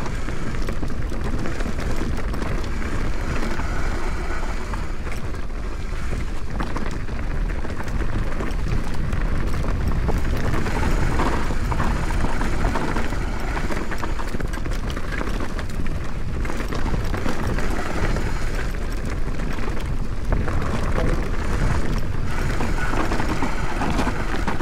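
Mountain bike riding down a dirt bike-park trail: steady wind rushing over the microphone over the rumble of the tyres, with many small rattles and knocks from the bike over rough ground.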